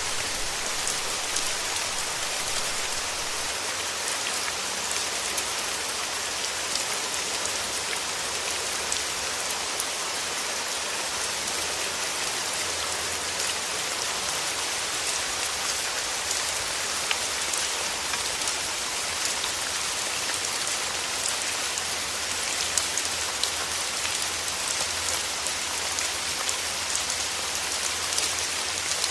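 Steady rain falling on a surface, a dense even hiss with many small drop clicks.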